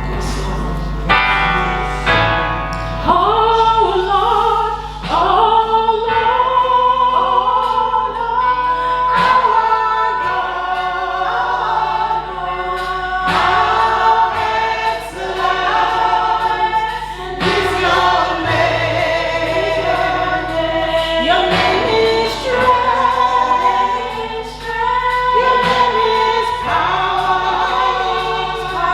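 Gospel choir singing a worship song over a steady instrumental backing, the sung phrases rising and falling and breaking every second or two.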